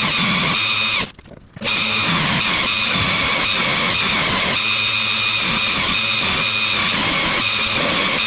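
Electric power tool whining at high speed while polishing a turbocharger housing, with a steady high-pitched tone. It cuts out for about half a second around a second in, then runs on steadily.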